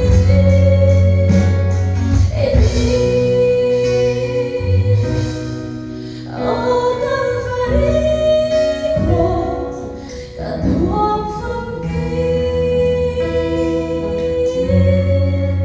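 A woman singing a Mizo gospel song solo into a microphone, amplified over a PA, over instrumental accompaniment; she holds long, steady notes between phrases.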